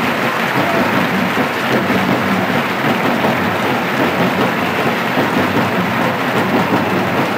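Large crowd applauding: a steady, dense wash of clapping.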